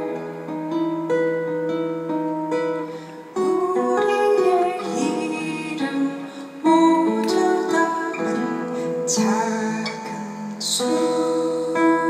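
Live band music: an acoustic guitar picked and strummed, with singing in parts.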